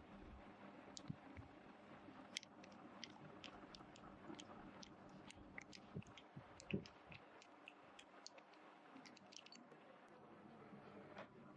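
Faint, irregular clicks and light knocks of metal parts and hand tools being handled while a blower machine is assembled, with one louder knock a little past halfway.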